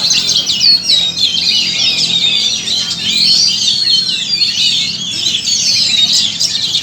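Several caged oriental magpie-robins (kacer) singing at once: a dense, continuous chorus of overlapping high whistled phrases, slurs and rapid chatter, with no pauses.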